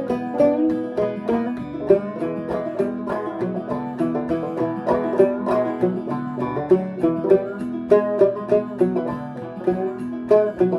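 Clawhammer banjo playing a tune in a steady rhythm: an old entry-level Gold Tone converted to half-fretless (flush-fret), with a goat-skin head and Nylgut strings.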